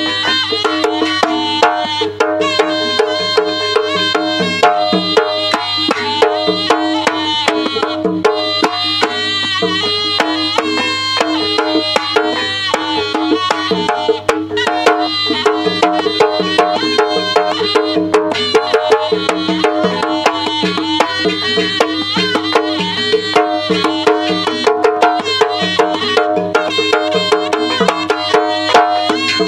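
Live Jaranan Buto ensemble music: hand drums and struck percussion keep a fast, steady rhythm under many quick pitched notes, over a steady held drone.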